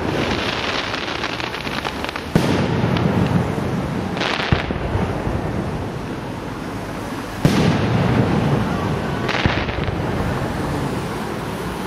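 Display fireworks going off: a shell bursts with a sharp bang about two seconds in and another later on, with crackling stars near the start and two short launch hisses in between.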